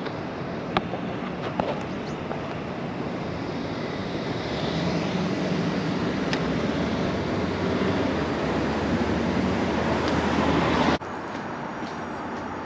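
Street traffic with vehicle engines running, a few sharp clicks early on. A heavier engine grows louder after about four seconds, then the sound drops suddenly near the end.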